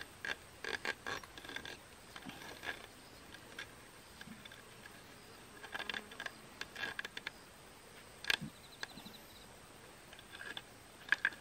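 Foot-snare wire cable being wrapped and threaded around a bamboo trunk by gloved hands: scattered light clicks and scrapes in small clusters, with one sharper click about eight seconds in.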